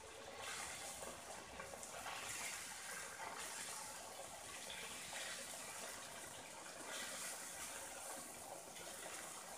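Catfish pieces frying in hot oil in a pan: a steady sizzle with small crackles.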